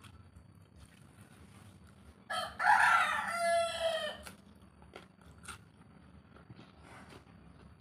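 A rooster crows once, a loud call of about two seconds a little over two seconds in, its pitch falling at the end. Faint chewing clicks can be heard around it.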